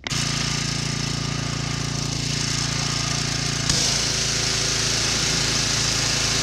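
Pressure washer running steadily with a hiss; the hiss gets brighter about three and a half seconds in.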